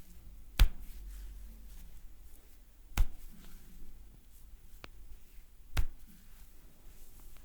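Sharp snapping cracks from a barber's hands during a head massage, three loud ones about two and a half seconds apart with a fainter one between the last two.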